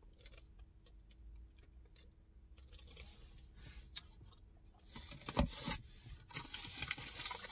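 Quiet at first, then from about five seconds in a foil-lined paper sandwich wrapper crinkling and rustling as it is handled.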